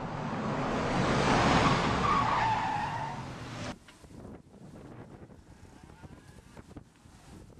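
A car driving past close by, its tyre noise swelling to a peak about a second and a half in, with a brief falling squeal; the sound cuts off abruptly about four seconds in, leaving faint street noise with light clicks.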